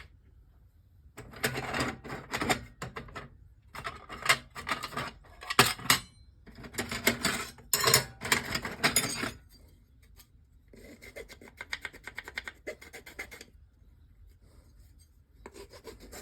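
Rasping, scraping strokes of hand tool work on a part being shaped to fit: loud spells of strokes for the first several seconds, then lighter strokes.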